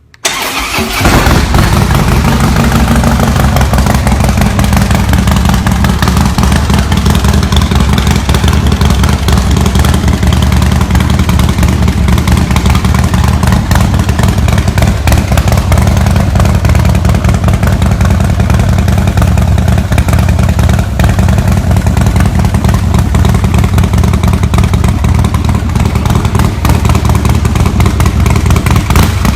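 Harley-Davidson Breakout's V-twin engine running loud and steady through its exhaust, cutting in suddenly within the first second.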